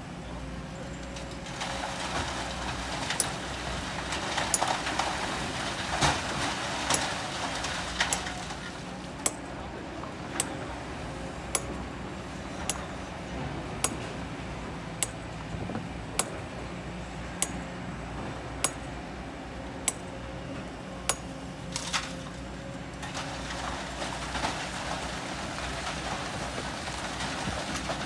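A Kobelco excavator's diesel engine runs steadily while loads of sand and rock pour from its bucket through a screen into a dump truck, once early on and again near the end. Between the two loads, sharp metallic clinks come about once a second.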